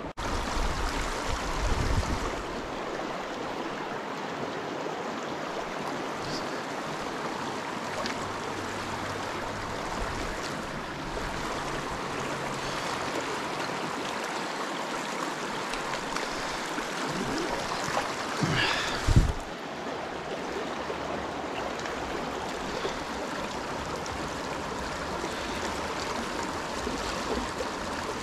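Shallow rocky mountain river running over stones: a steady rush of flowing water, with a brief louder bump about two-thirds of the way in.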